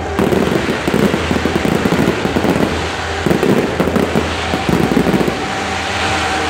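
Fireworks crackling: a dense, rapid patter of small pops from many crackling stars bursting at once. It thins briefly about three seconds in and gives way to a steadier hiss about five seconds in.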